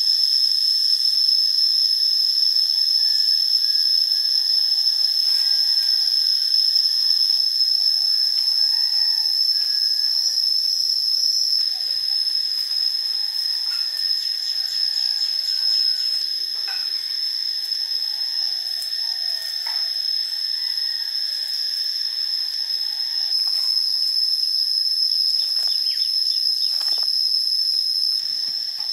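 A steady high-pitched drone of insects, unbroken throughout. Under it, now and then, faint scrapes and knocks of a hand tool digging into dry soil.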